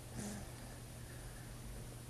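One short snorting snore, a 'hork', a fraction of a second in, over a steady low hum.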